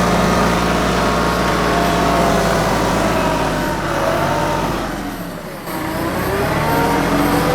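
TYM 2515H compact tractor's three-cylinder diesel engine running under load, its pitch shifting as it works. The sound eases off briefly about five seconds in, then comes back up.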